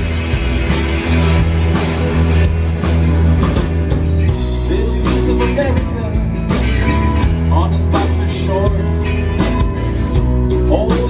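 Rock band playing live, with drum kit and guitar mid-song.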